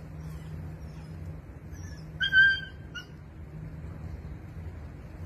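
Tied-up puppy giving one loud, high whine about two seconds in, then a short fainter one just after. It is the distress crying that the neighbour reports it keeps up all day while tied without food or water.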